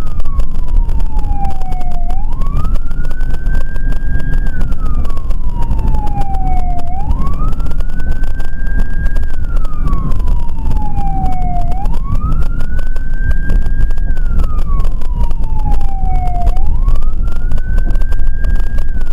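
Emergency vehicle siren in a slow wail, rising over about a second and a half, holding high briefly, then falling over a couple of seconds, repeating about every five seconds. Under it runs a heavy, steady low rumble of vehicle and road noise.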